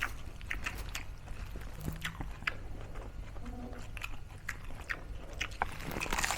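Close-up chewing and crunching of crispy deep-fried pork mesentery (chicharong bulaklak), with irregular sharp crackles as it is bitten and chewed.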